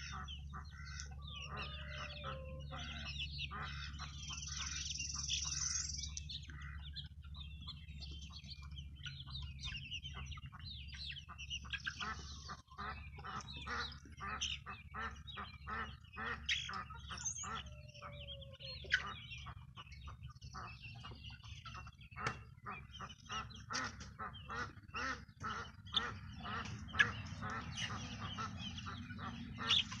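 A flock of hens clucking and calling, many short calls overlapping and coming faster in the second half, over a low steady hum.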